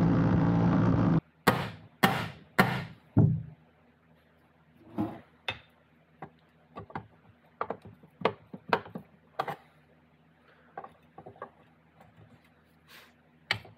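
A cordless DeWalt impact driver hammers on a fastener of a New Process 242 transfer case for about a second and stops. Four loud sharp knocks follow, about half a second apart, then scattered lighter taps and clicks of tools against the case as a pry bar is worked into the case seam.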